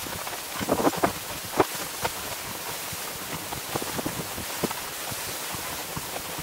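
Splitboard moving over snow: irregular crunches and scrapes over a steady hiss, a cluster of louder crunches about a second in.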